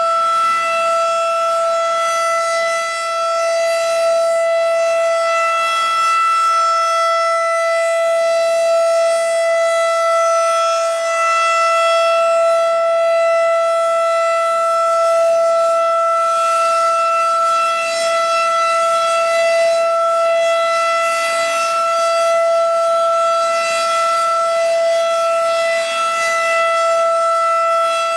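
Federal Signal 2001-DC outdoor warning siren sounding the alert signal: one loud, steady tone held at full pitch. It is the monthly test of a tornado warning siren.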